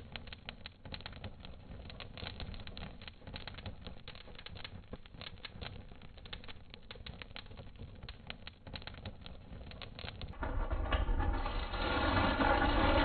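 Crackling of a burning wood fire: many small irregular pops and snaps. About ten seconds in it gives way abruptly to a louder, steady mechanical rumble with a hum.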